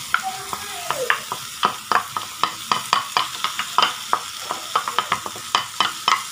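Onion-tomato masala frying in oil in a pan with a steady sizzle. Over it, a wooden spatula makes many quick, irregular knocks and scrapes as it pushes fish flesh out of a glass bowl into the pan.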